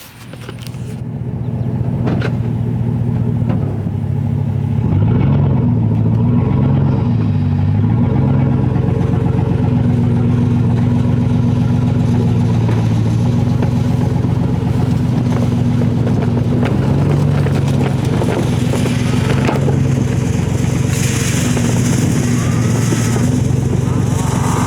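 Pickup truck engine running steadily with a low hum, fading up over the first two seconds; its pitch rises and falls briefly about five to eight seconds in.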